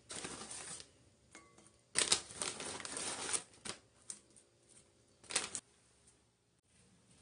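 Crinkling of a plastic bag and dry rustling of dried deodeok root slices being laid into a glass bowl. The sound comes in bursts: one at the start, a longer stretch from about two seconds in, and a short one near five seconds in, with a few light clicks between them.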